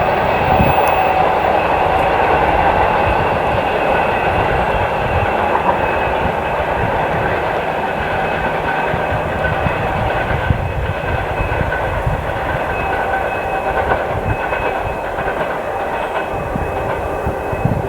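Turbocharger whistle of a 2TE116 diesel locomotive's 5D49 engines, steady high tones that slowly fade, over the rumble and clatter of passenger coaches running over rail joints.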